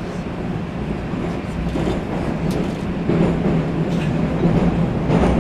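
Inside a 'Moskva' metro train car under way: the steady rumble of the running train with a constant low hum.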